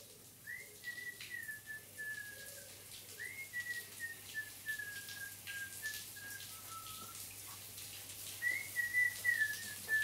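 A person whistling a slow tune, one thin line of held notes that slide into each other, dipping to a lower note about seven seconds in before rising again.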